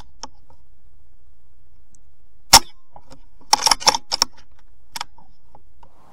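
A single sharp air rifle shot about two and a half seconds in, from a BSA Super10 .22 pre-charged pneumatic rifle at 15 ft/lb, taken at a wood pigeon. About a second later comes a quick run of clicks and knocks.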